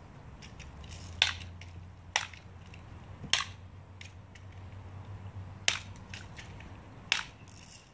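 BB gun firing five shots at irregular intervals of one to two seconds, each a sharp snap, over a faint low steady hum.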